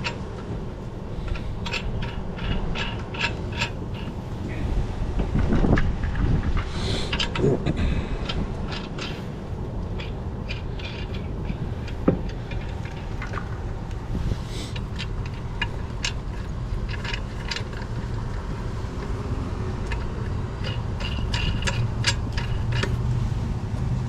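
Scattered metal clinks and clatter of tire-change tools and equipment being handled, with one sharp knock about halfway through, over a steady low rumble of wind on the microphone.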